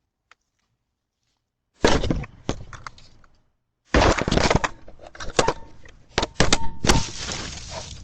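A run of loud bangs, knocks and crashing. It starts suddenly about two seconds in, breaks off briefly, then resumes as a longer stretch of repeated sharp impacts.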